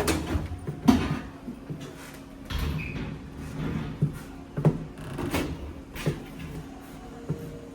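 Sheet-metal access panel of an HVAC unit being pulled off and handled: a string of knocks, clatters and scrapes, about five sharp ones spread over several seconds, with a low steady hum underneath.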